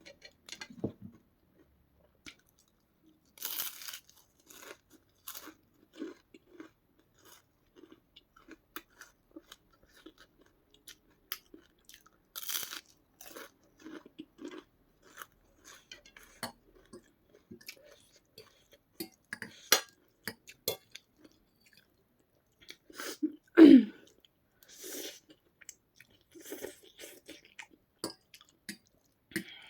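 Close-miked chewing and crunching as a person eats crisp white papad: scattered crackles and crunches at an irregular pace. About three quarters of the way through comes one louder, brief sound that drops in pitch.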